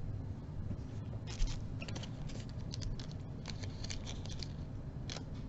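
Small plastic bead baggies being handled, giving a run of irregular crinkles and light clicks that starts about a second in.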